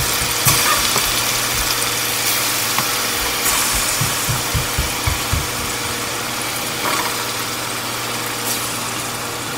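Chicken breast pieces frying in hot oil in a stainless steel pot, a steady sizzling hiss over a low steady hum. A run of soft low thumps comes in the first five seconds or so.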